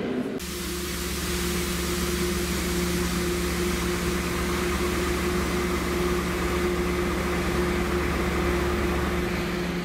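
Steady hum of the ventilation and air-conditioning equipment on parked passenger coaches: a constant two-note electrical drone over a fan hiss.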